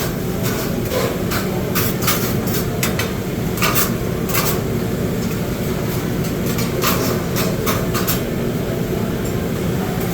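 Cooks' utensils scraping and clacking on a Mongolian-grill flat-top in irregular sharp strikes, over a steady din of the grill and busy kitchen.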